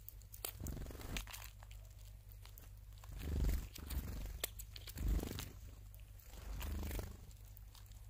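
Tits tapping and cracking seeds at a bird feeder: scattered sharp pecks and crunches, with two louder dull thumps about three and a half and five seconds in over a steady low hum.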